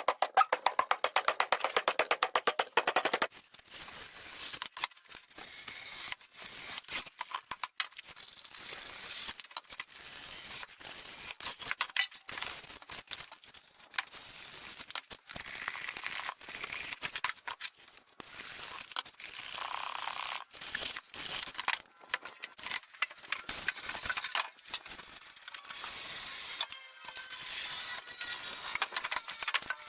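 Foam board being cut into squares: scratchy scraping and crackling with scattered clicks, starting with a fast, even run of strokes for about the first three seconds.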